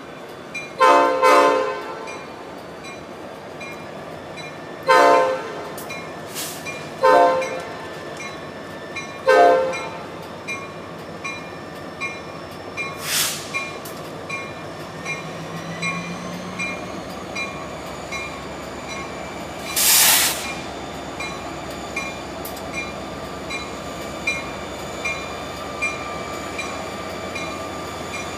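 Diesel locomotive air horn sounding four blasts, the first the longest, over the rumble of a freight train rolling past. Later, two short, sharp bursts of hiss cut through the steady rolling noise.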